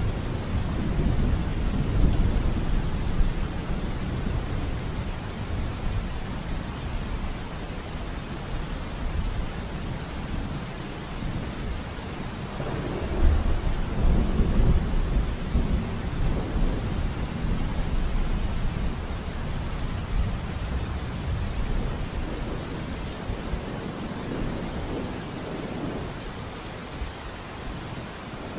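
Steady rain with low, rolling rumbles of thunder, one swelling up about thirteen seconds in.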